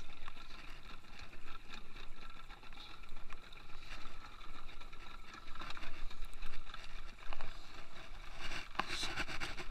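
Small boat's engine running steadily, with wind and water noise and scattered knocks and clatter of gear.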